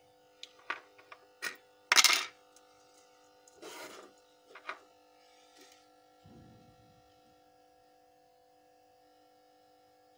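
Small tools and a charger circuit board being handled and set down on a wooden desk: a handful of light clicks and knocks, the loudest a short clatter about two seconds in, then a brief rustle and a low short rumble, over a faint steady hum.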